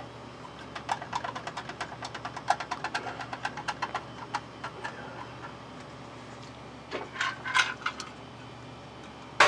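Quick, irregular run of small sharp clicks, several a second for about four seconds, from a hand tool working the screws of a gas meter's head. A few more clicks and scrapes follow near the end, and there is a louder sharp knock right at the end.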